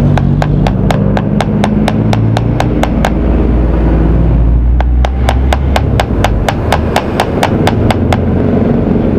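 Steel hammer pounding a bent part straight with rapid, even blows, about four a second, pausing briefly about three seconds in before starting again.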